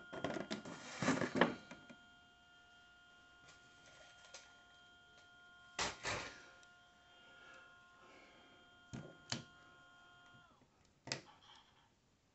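Crackles and clicks from stiff clear plastic blister packaging and a plastic action figure being handled, loudest about a second in and again about six seconds in. Underneath runs a steady background whine of several tones that drops in pitch and stops about ten and a half seconds in.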